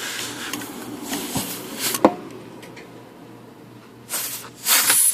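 Compressed air hissing in blasts at an IBM Selectric typewriter's rotate and tilt pulleys, blowing out the lacquer thinner used to flush them: one longer blast at the start, a sharp click about two seconds in, and two short, louder blasts near the end.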